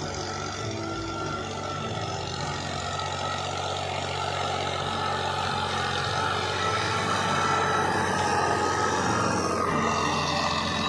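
Tractor diesel engine running steadily while pulling a cultivator through orchard soil, growing louder as it comes close and passes.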